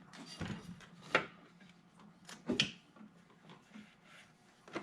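Hand tools and parts clicking and knocking while an intake pipe and its clamps are worked into place, with faint rubbing between. Sharp clicks come about a second in and again at about two and a half seconds.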